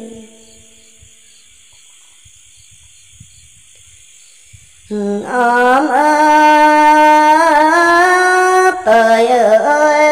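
Red Dao folk singing: after a few seconds of faint hiss, a single voice comes in about five seconds in and sings long held notes that waver and bend in pitch, with a brief breath break near the end.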